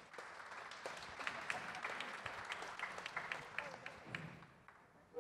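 Audience applauding: the clapping swells over the first second or so and dies away near the end.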